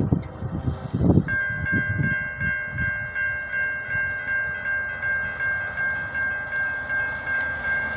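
Railroad crossing warning bell starting to ring about a second in, a steady high ringing that pulses at about two strokes a second as the crossing activates for an approaching train. Wind buffets the microphone before it.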